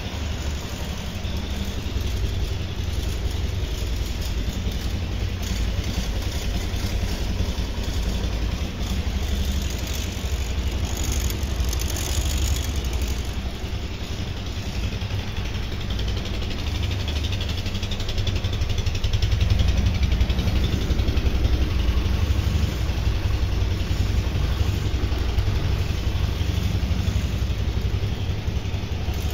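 Linhai ATV's single-cylinder four-stroke engine idling steadily, a little louder for a few seconds about two-thirds of the way through.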